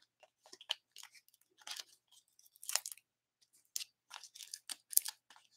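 Foam adhesive dimensionals being peeled off their backing sheet and pressed onto the back of a cardstock piece: a series of faint, short crackles and peeling sounds.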